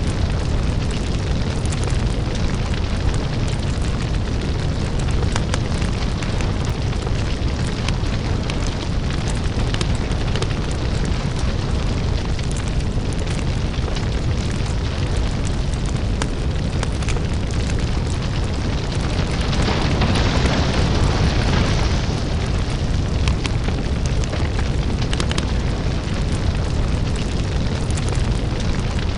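Crackling lava-fire ambience: a steady deep rumble under many small crackles and pops, with a louder hissing surge about twenty seconds in that lasts a couple of seconds.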